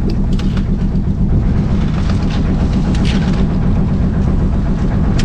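A boat's engine running steadily with a low, even drone. A metal ladle scrapes a few times against a plastic basket as chopped chicken is pushed out into a pot.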